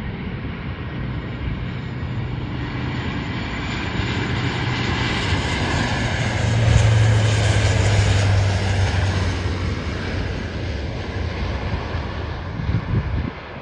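Lockheed KC-130J Hercules with four Rolls-Royce AE 2100 turboprops passing low overhead on approach, gear down: a steady propeller drone with turbine whine above it. It swells to its loudest about halfway through, drops slightly in pitch as the aircraft passes, then fades and cuts off suddenly near the end.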